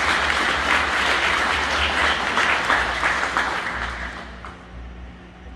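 Audience applauding a graduate, a dense patter of many hands clapping that dies away about four seconds in.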